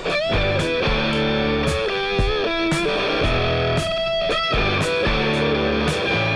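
Background rock music: electric guitar with bending lead notes over a steady drum beat.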